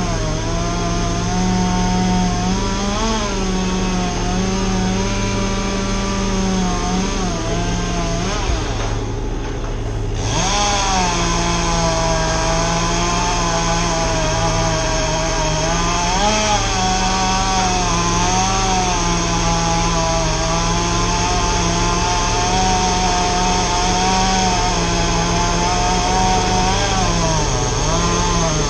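An engine running continuously at working speed, its pitch wavering up and down as the load changes. It is briefly muffled about nine seconds in, then comes back up.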